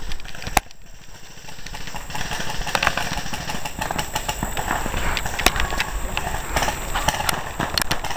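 Running footsteps crashing through woodland undergrowth, with leaves and brush rustling and irregular knocks and thumps.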